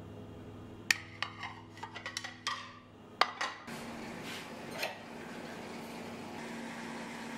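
Ceramic plates clinking and knocking against each other as they are handled and stacked, a quick run of sharp clinks over about three seconds. A few softer knocks follow as a ceramic bowl is lifted off a cupboard shelf.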